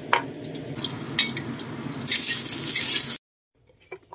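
A cleaver knocking sharply on a wooden cutting board a few times while chopping garlic, over a steady hiss that gets brighter about two seconds in. A little after three seconds it cuts off abruptly, leaving only a couple of faint taps.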